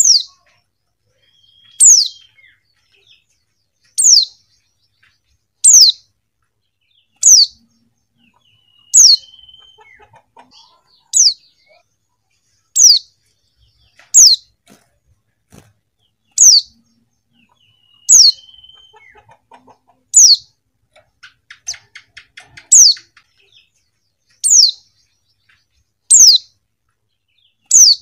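Female white-eye (pleci) calling: a short, high, downslurred note repeated over and over, about one every two seconds. A few softer short notes and a faint quick chatter fall between the calls.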